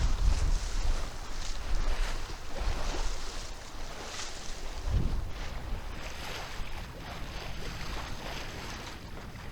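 Water rushing and splashing along the hull of a Maxi 95 sailboat under sail, with wind buffeting the microphone. The surges of water come every second or so in the first half, then ease into a steadier hiss.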